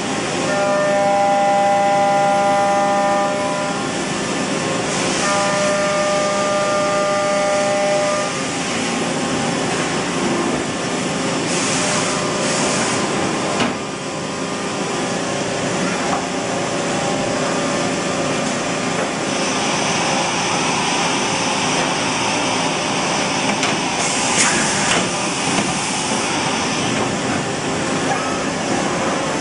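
Mazak Integrex-200IV ST CNC turning center running a machining cycle: a steady machine whine with several pitched tones for the first eight seconds or so, then a broader running noise. A brighter hiss comes in from about twenty to twenty-seven seconds.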